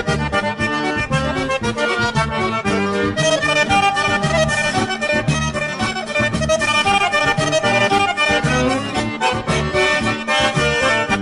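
Background music led by an accordion, with a steady, regular beat.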